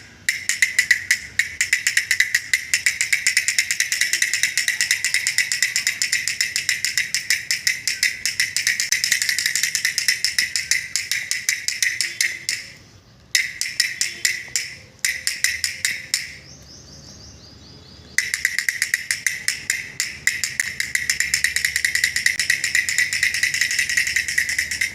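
Homemade cardboard-and-bamboo drum toy car drumming as it is rolled: bamboo sticks beat a cardboard drum in a fast, rattling run of taps. The drumming stops briefly twice about halfway through, falls away for about two seconds, then starts up again.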